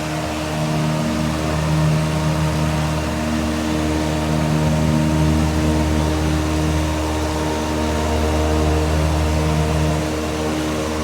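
Electric fan running at high speed: a steady rush of air over a buzzing motor hum.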